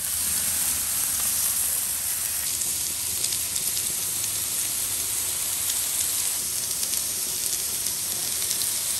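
Emu steaks and emu mince patties sizzling on a gas barbecue's grill and flat hotplate: a steady hiss with fine crackles.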